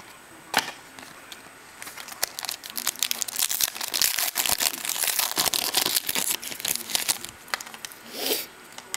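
Foil wrapper of a trading card pack crinkling and tearing as it is opened by hand: a dense run of fine crackles lasting about five seconds, with a single click near the start and a short rustle near the end.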